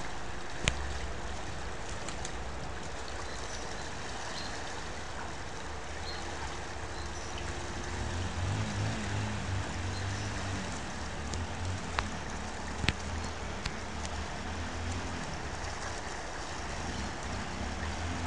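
Small motorcycle engine running over a steady rushing noise, its low note growing stronger and pulsing about halfway through, with a few sharp knocks.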